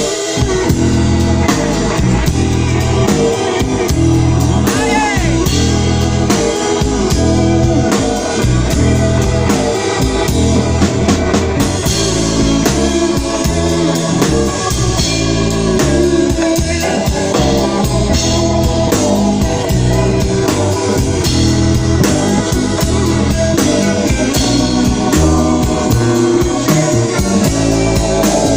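Live band music: an instrumental passage with a steady beat.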